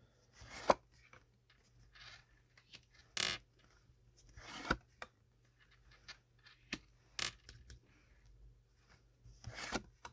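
Tarot cards being handled: a run of short swishes as cards slide and are drawn from the deck, with a few sharp taps as they are flipped and laid down.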